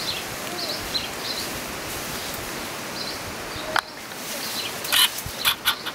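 Outdoor ambience: small birds chirping over a steady rustling hiss, with one sharp click about four seconds in and a quick run of knocks or clicks near the end.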